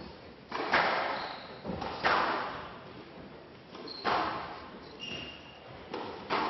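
Squash rally: the ball struck by rackets and hitting the walls of a glass court, sharp cracks every one to two seconds, each ringing on in the hall.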